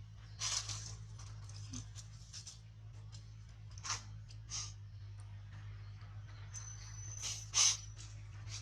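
Scattered short rustles and crunches, the loudest about half a second in, near four seconds and near the end, over a steady low hum. A faint thin high whine comes in during the last two seconds.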